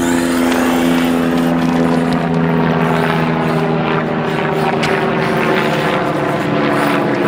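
Electric whine of an HPI Savage Flux RC monster truck's 2350kV brushless motor and drivetrain as it runs, with a steady pitch that drops about two seconds in as the throttle changes.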